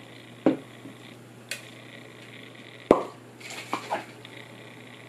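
Small clicks and taps of makeup products and tools being handled: a few scattered knocks, the sharpest just before the middle, and a quick run of small clicks shortly after.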